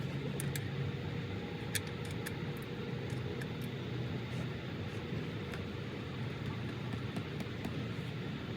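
Steady background hum, with a few faint, irregular metallic clicks of a wrench working on a stripped oil drain bolt.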